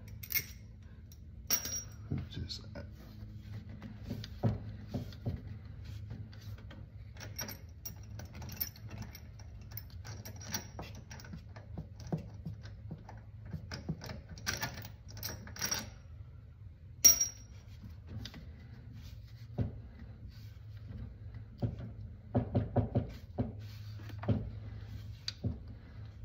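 Hand wrench and bolts clinking against the stock driveshaft's rear flange as the flange bolts are worked loose, in irregular metallic clicks and clinks. A sharp ringing clink comes about 17 seconds in. A steady low hum runs underneath.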